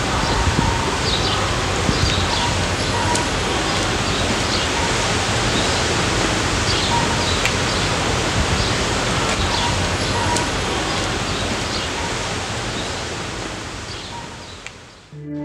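Outdoor street ambience: a steady hiss of background noise with small birds chirping now and then. It fades out near the end.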